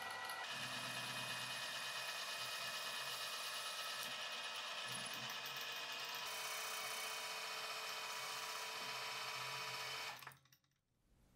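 Milling machine spindle running and its cutter cutting aluminium, a steady whine over a cutting hiss. The tone shifts about six seconds in, and the machine sound cuts off near the end.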